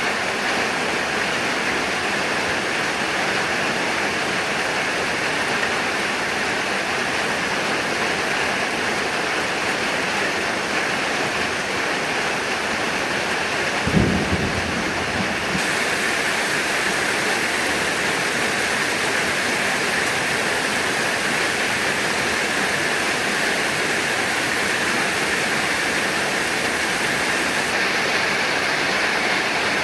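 Heavy rain falling steadily, with one short low rumble of thunder about halfway through.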